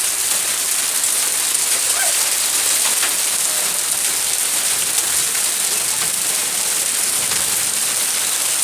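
Hail and rain pelting down: a dense, steady hiss with faint scattered ticks of stones striking.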